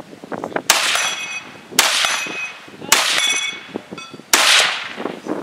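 Rifle fire at a distant steel target: four shots about a second apart. Each shot is followed by a brief high metallic ringing from the steel being hit.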